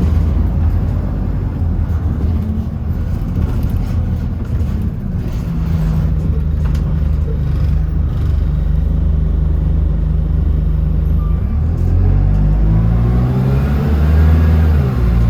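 Bus engine running under way, heard from inside the bus, with a steady low hum; near the end it climbs in pitch as the bus accelerates, then drops sharply at a gear change.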